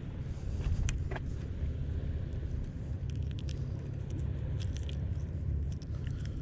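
A steady low rumble throughout, with faint scattered clicks and rustles of a hook being worked out of a caught whiting's mouth by hand.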